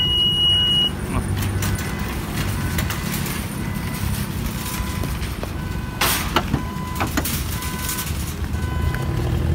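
Honda Pilot power liftgate closing: one long electronic warning beep as it starts, then the gate coming down and latching shut with a sharp clunk about six seconds in. Steady low background noise runs underneath.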